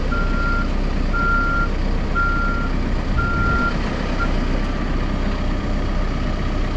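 Backup alarm of a Caterpillar 420F2 backhoe loader beeping about once a second over its running diesel engine. The alarm, which sounds while the machine is in reverse, stops after about four seconds, leaving the engine running.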